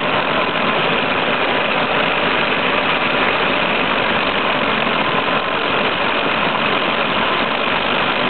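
Drive of a homemade 1:10-scale RC PistenBully PB 300 Polar snow groomer model running steadily as it moves, a continuous whirring with a faint high whine.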